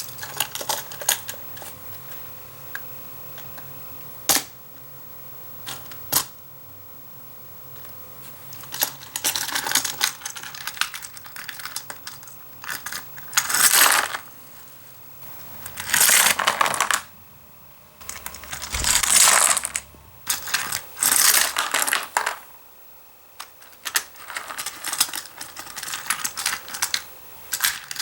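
Hot Wheels Construction Site playset being handled: sharp plastic clicks and several short clattering rattles, each about a second long.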